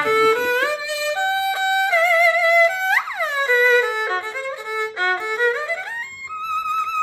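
Erhu being played with the bow: a short melodic phrase with slides between notes and a held, wavering note near the end. The tone is clear and open, which is the sign of a well-made instrument that does not buzz.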